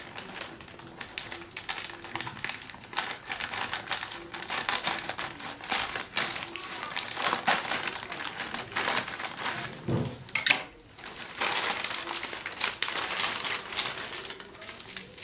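Crinkly delivery packaging rustling and crackling as it is cut open and handled by hand, with a soft thud about ten seconds in.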